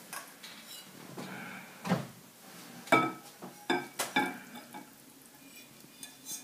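A metal spoon clinking and scraping against a stainless-steel saucepan as the wet batter ingredients are scraped out into a glass mixing bowl: several sharp metallic taps, the loudest about two and three seconds in.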